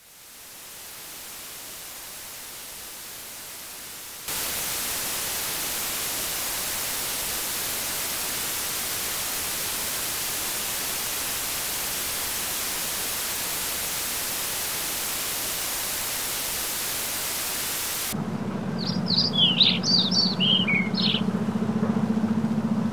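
Steady static hiss that fades in, steps up louder about four seconds in and holds flat. It cuts off near the end to a few quick bird chirps over a steady low hum.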